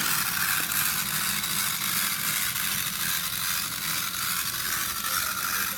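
A steady hiss with a low hum underneath, unchanging throughout.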